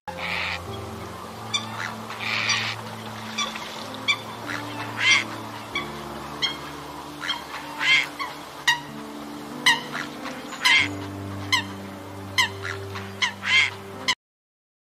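Eurasian coots giving short, sharp honking calls, many in irregular succession, over soft background music with sustained low chords. It all cuts off suddenly near the end.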